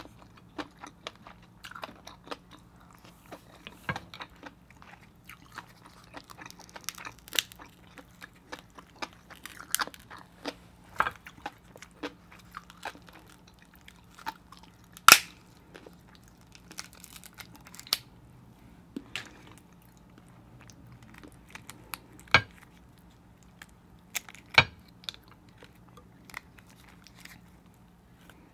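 Close-miked chewing and mouth sounds of someone eating king crab, with scattered sharp clicks and cracks as the crab shell is handled and the meat pulled apart by hand; the loudest crack comes about 15 seconds in.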